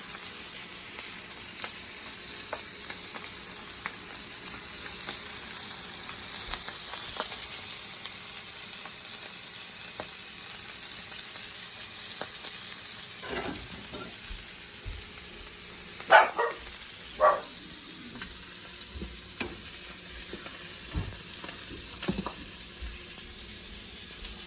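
Chicken breast frying in oil in a hot cast-iron pan, with a steady sizzle. Two short, sharp sounds stand out about two-thirds of the way through, with a few fainter ones around them.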